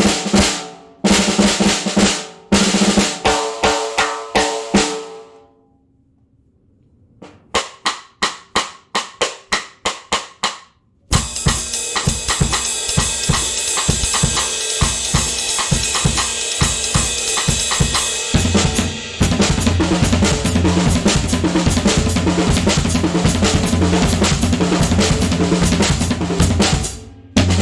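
A handmade solid-wood stave snare drum played: a few single hits that ring on, then a run of separate strokes, then about a second over ten seconds in a dense fast roll and continuous rapid playing that stops shortly before the end. The recording clips in places.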